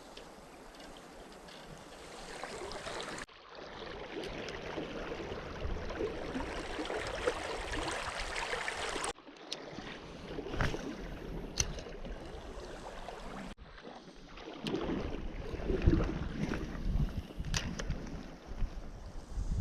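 Flowing river water with wind buffeting the microphone. The sound jumps abruptly at three points, and there are a few sharp clicks in the second half.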